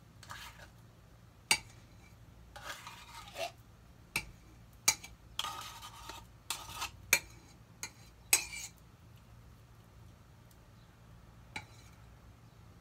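A metal spoon scraping tomato paste out of a small can into a crockpot, with sharp taps of the spoon on metal every second or so, going quiet near the end apart from one last tap.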